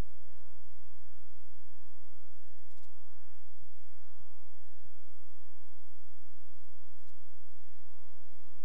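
Steady electrical hum, a low drone with a stack of steady overtones, like mains hum on the audio line; a few faint ticks come now and then.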